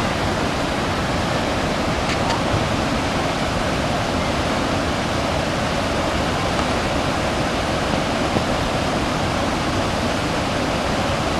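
Mountain river in flash flood rushing steadily: fast, muddy whitewater running very loud.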